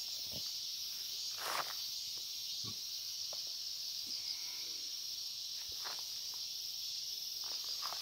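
A steady, high-pitched chorus of insects in summer-to-autumn vegetation. A few soft rustles and steps sound as someone pushes through dense grass and weeds, one about a second and a half in and another near six seconds.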